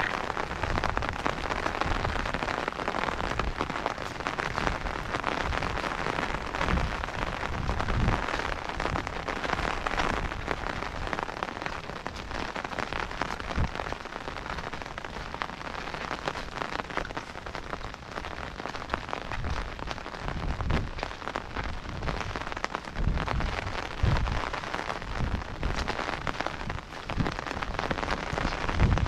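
Steady rain falling, an even hiss, with a few short low rumbles along the way, the strongest about 20 and 24 seconds in.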